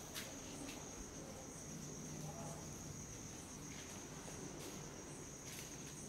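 Crickets trilling steadily in one high, unbroken tone, with a few faint clicks.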